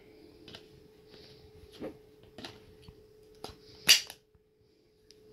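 Kimel AP9 9mm pistol being handled: a handful of light clicks and knocks, with one sharper, louder click a little before four seconds in.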